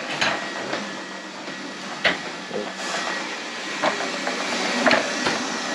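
Lefant M210B robot vacuum running, a steady hiss of its suction with a faint high whine, and several sharp clicks as it works across the floor.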